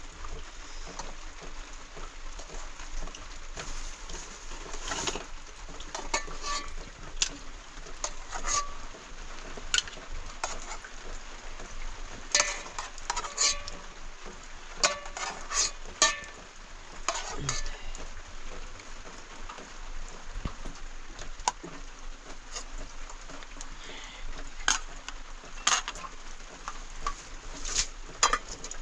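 Scattered sharp clicks and knocks, as of pots and utensils being handled, over a steady hiss.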